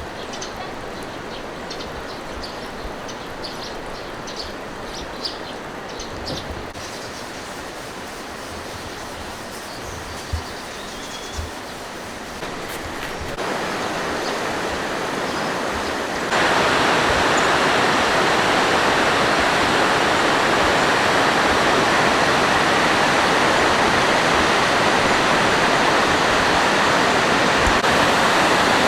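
Steady rushing water, a continuous noisy hiss. It jumps abruptly louder about thirteen seconds in and again about sixteen seconds in, then stays loud.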